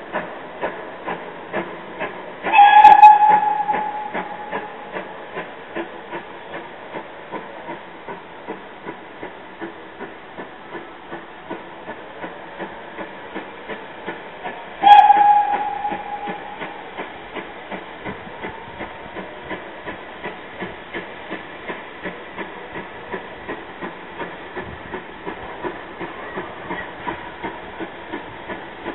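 Steam locomotive approaching: two short whistle blasts about twelve seconds apart, each sharp at the start and fading over a second or so, over a steady beat of about two a second from the working engine.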